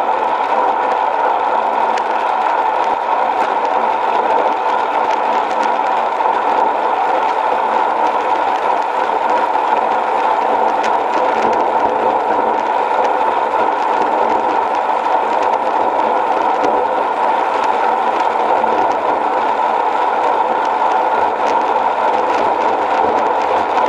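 Road bicycle rolling at speed on asphalt: a steady rush of tyre and wind noise, with small clicks and rattles from the bike.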